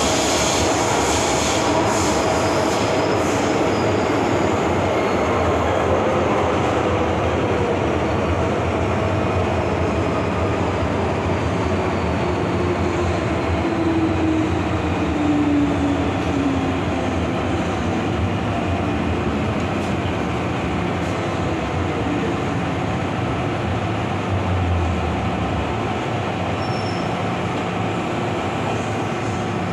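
MTR M-Train electric multiple unit running through the tunnel, with steady wheel and running noise and a traction motor whine that slides slowly down in pitch as the train slows.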